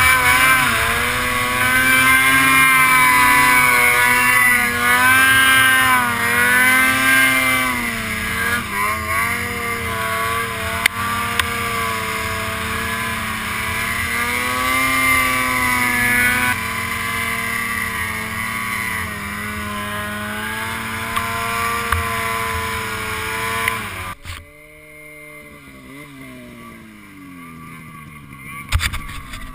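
Snowmobile engine running under load, its pitch rising and falling with the throttle. About 24 seconds in the throttle is cut and the engine winds down to a quieter idle, with a brief loud knock near the end.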